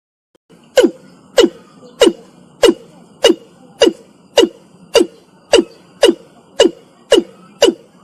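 Breeding male watercock calling: a steady series of short, loud notes, each dropping in pitch, repeated evenly a little under two times a second, starting about a second in.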